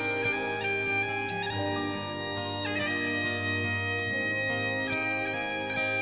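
Bagpipe music: a melody played over a steady low drone.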